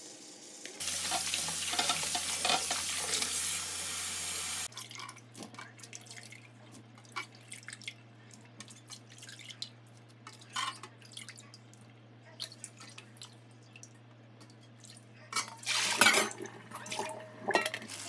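Kitchen tap water running into a stainless-steel sink while cubed radish is rinsed by hand. The water stops abruptly about five seconds in, leaving scattered drips and knocks of the wet radish cubes being handled. A second short, loud rush of water comes near the end.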